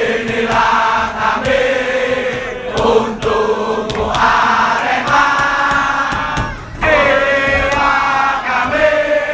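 A packed crowd of football supporters singing a chant together, many men's voices holding long notes in phrases with short breaks between them.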